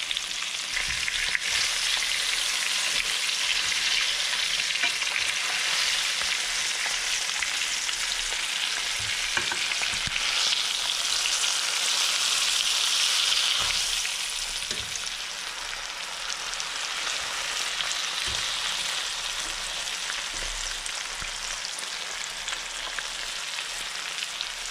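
Flour-coated crucian carp frying in hot sunflower oil in a pan: a steady crackling sizzle that eases off a little about halfway through. A few faint knocks come in now and then.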